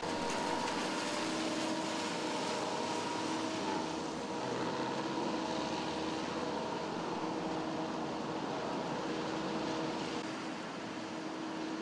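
Steady hiss of rain falling on a wet city street. Under it runs a steady mechanical hum of a few held tones with a low rumble, which partly drops away about ten seconds in.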